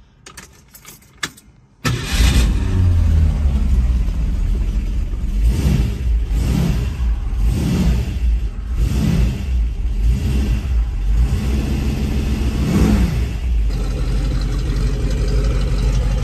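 1967 Shelby Mustang GT350's 289 V8 starting about two seconds in after a few light clicks, then revved in a series of short blips before settling to a steady idle near the end.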